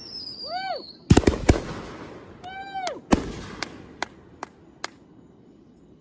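Fireworks going off: two whistling shells, each whistle rising and then falling in pitch, among sharp bangs. There are three quick bangs about a second in and a big bang about halfway through, followed by four lighter cracks in a row that fade out.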